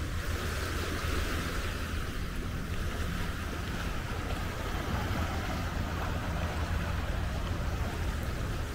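Steady wind rumbling on the microphone over a continuous wash of sea waves.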